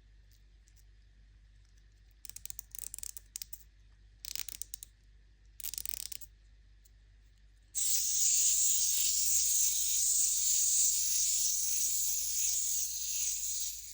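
A candy-egg wrapper being torn and crinkled: three short crackly rips, then from about eight seconds in a loud, continuous crinkling that stops near the end.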